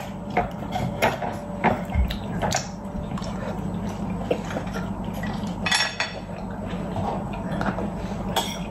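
Chopsticks and utensils clicking and clinking against plates and takeaway containers during a meal: scattered short knocks over a steady low hum.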